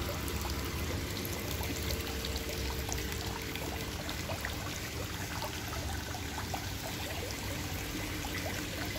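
Water pouring steadily into a koi pond, a constant rushing trickle with many small splashes and drips.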